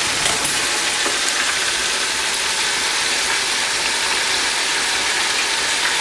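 Chicken thighs frying in hot canola oil in a DeLonghi electric deep fryer under its closed lid, a steady, dense crackling and sizzling.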